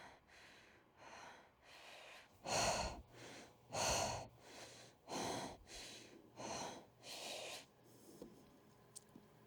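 A woman breathing heavily and quickly, one breath roughly every half second. The breaths grow louder through the middle and die away near the end.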